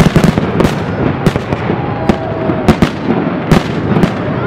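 Fireworks display going off in quick succession: a dozen or so sharp bangs of bursting shells, two or three a second, over a steady rumble and crackle, with a short falling whistle about two seconds in.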